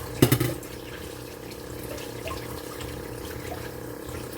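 Kitchen tap running into the sink while an onion is rinsed under it, with a short loud knock or clatter about a quarter second in.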